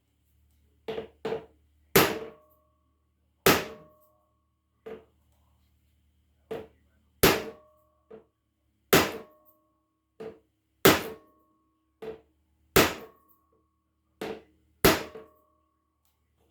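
Hammer blows driving the rust-seized piston of a 1952 Scott Atwater 7.5 hp outboard down its cylinder to free it. The hammer gives a light tap, then a heavy blow, about every two seconds, and most heavy blows leave a short metallic ring.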